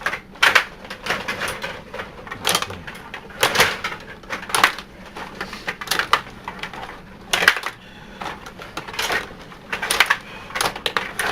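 Stiga table hockey game in play: a rapid, irregular clatter of the puck and plastic players striking each other and the boards, with the rods rattling and a few louder sharp knocks.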